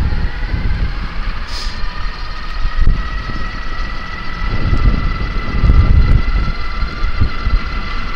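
Electric bike motor whining as the bike speeds up, its pitch rising slowly, over gusty wind buffeting the microphone.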